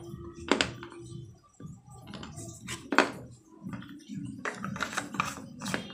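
Crisp, irregular cracking crunches of baked clay pot pieces being chewed close to the microphone. Near the end a denser run of quick clicks comes as water is drunk from a plastic bottle.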